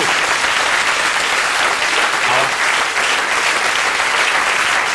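Studio audience applauding steadily, many people clapping at once.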